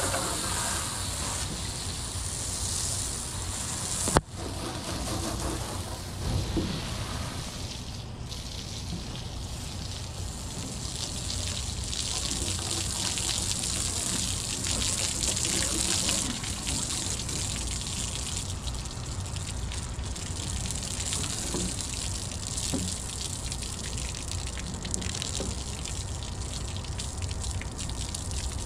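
Hose water spraying and splashing onto a yacht's fibreglass bulwark, rinsing off soap before it dries: a steady hiss and splash, with one sharp click about four seconds in.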